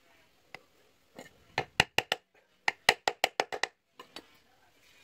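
Sharp wood-on-wood knocks as a wooden knife handle is driven down onto the tang against a wooden stump: about ten loud knocks in two quick runs, the first starting about a second and a half in, the second from under three to nearly four seconds.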